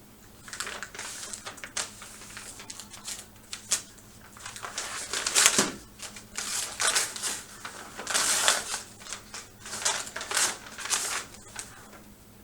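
Paper rustling and crinkling as a sealed bid envelope is opened and its pages handled, in irregular bursts with a sharp crackle about five and a half seconds in.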